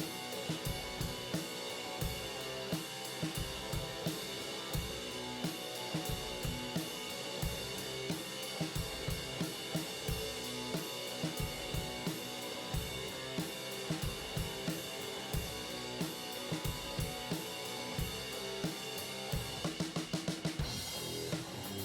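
Background music: an instrumental track with a steady drum-kit beat.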